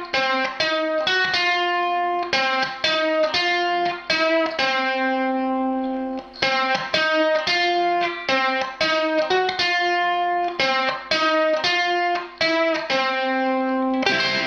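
Solid-body electric ukulele played through a small Marshall guitar practice amp with its overdrive on: a steady rhythmic run of picked notes and chords, one note held for a moment midway, ending on a strummed chord left ringing.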